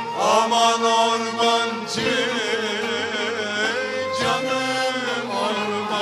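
Live Turkish folk music from a traditional ensemble with cello and other strings. A long melody line glides in near the start, then holds wavering notes with heavy vibrato.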